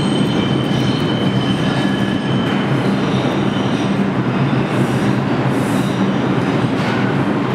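R62A subway train pulling into an underground station: a steady rumble of wheels on rail, with a high wheel squeal that fades out about two and a half seconds in and two short hisses a little past halfway.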